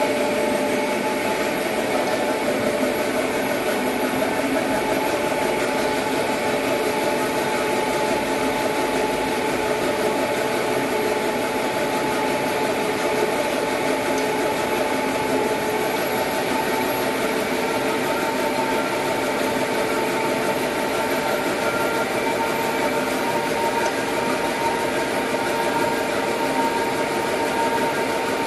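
Dry offset cup printing machine running steadily: a continuous mechanical hum with several steady tones over a haze of machine noise.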